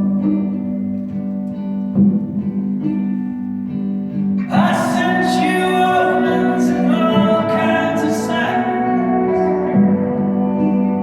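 Live indie folk band performance: guitars and sustained low band tones, with a voice singing over them from about four seconds in.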